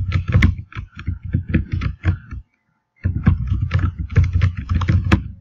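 Computer keyboard typing: rapid keystrokes in two quick runs, with a short pause a little over two seconds in.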